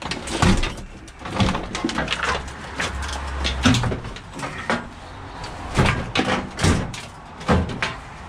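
Irregular metal knocks and clanks, about eight hard strikes spread over several seconds, from a scrap appliance being dismantled by hand to free its motor.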